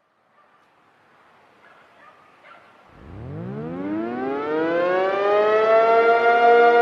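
Outdoor civil-defense warning siren winding up from a stop. It starts about three seconds in after a faint hiss, rises in pitch and loudness for about three seconds, then holds a steady tone.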